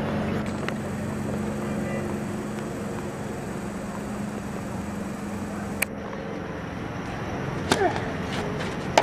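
Racket hitting a tennis ball on a serve near the end, with a short grunt, then a second hit soon after. Before that, one sharp tap a little after halfway, over a steady low hum and faint voices.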